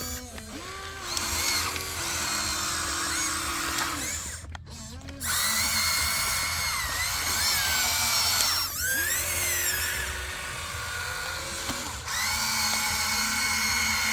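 Small electric motor whining under changing load. Its pitch holds, then slides up and down, and it stops briefly about four to five seconds in.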